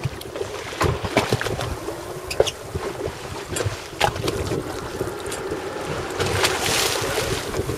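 Wind buffeting the microphone and water slapping against a boat at sea, with scattered short knocks and clicks throughout. There is a louder rush of hiss about six and a half seconds in.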